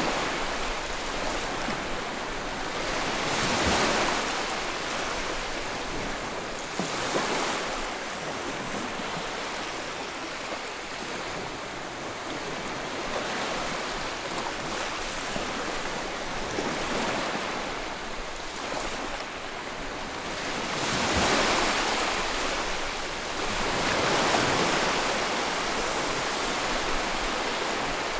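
Ocean waves breaking and washing on the shore, a continuous surf with several swells that build and fall: one at about four seconds, a smaller one near seven seconds, and two louder ones about two-thirds of the way through.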